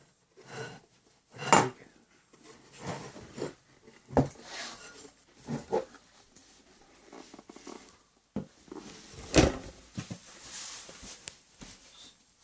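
Handling noise from a solar charge controller and its packaging: an irregular string of knocks, clicks and rustles, with two sharper knocks, one about a second and a half in and one about three-quarters of the way through.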